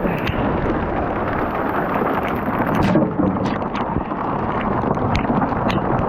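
Violent storm: wind rushing over the microphone and sharp pelting impacts, with a louder burst about three seconds in.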